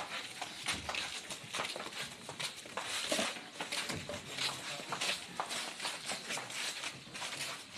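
Shuffling footsteps and irregular small knocks and rustles as a tall cabinet is carried upright by hand.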